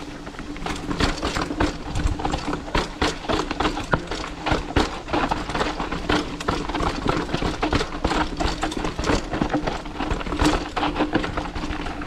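Mountain bike clattering and rattling over a rough, bumpy trail: a dense run of irregular knocks and rattles from the bike jolting over the ground, over a steady hum.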